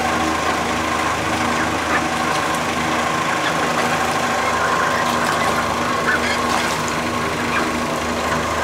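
Young mallard ducks quacking in short, scattered calls over a steady machine hum.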